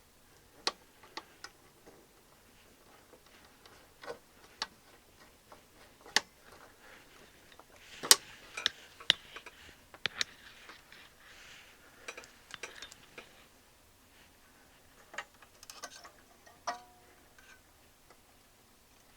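Irregular sharp clicks, taps and clinks from hands and tools working on a receiver's amplifier module and chassis as it is put back together, the loudest a cluster of knocks about eight seconds in.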